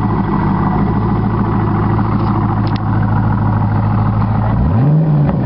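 Corvette Z06 V8 idling steadily, then one quick rev blip near the end that rises and falls in pitch.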